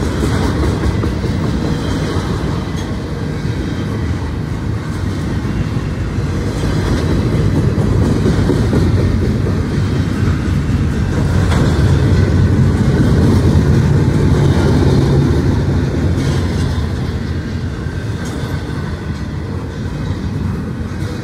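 Norfolk Southern double-stack intermodal freight train's loaded well cars rolling past close by: a steady heavy rumble of steel wheels on the rails, growing louder in the middle.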